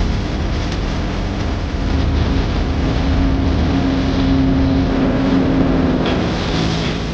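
Small rescue boat's engine running over rushing water and wind noise, with a steady hum that grows through the middle and stops about six seconds in.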